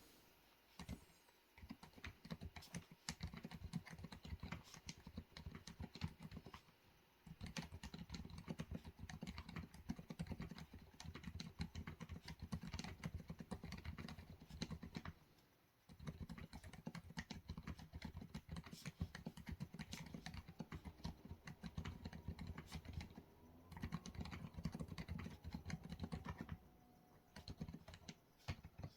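Typing on a COX CK01 tenkeyless mechanical keyboard with factory-lubed Outemu Peach switches, Cherry-profile PBT keycaps and a tape-modded PCB: fast runs of keystrokes broken by a few brief pauses.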